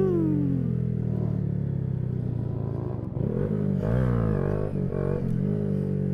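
Honda Grom's single-cylinder engine running through an aftermarket KemiMoto exhaust. The revs drop off right at the start, then rise and fall again about four seconds in as the rider tries to lift the front wheel into a wheelie.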